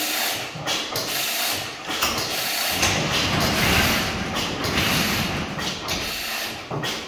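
Fairbanks Morse Model N 15 hp single-cylinder stationary engine running steadily, its flywheel spinning. A heavier rumble from about three to six seconds in comes as an overhead garage door is rolled up.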